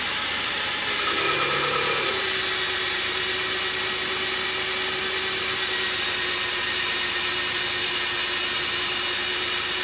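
Magnetic drill running steadily under load, drilling out a snapped track-guide bolt flush in an excavator's track frame. Its hum drops slightly about two seconds in, then holds steady.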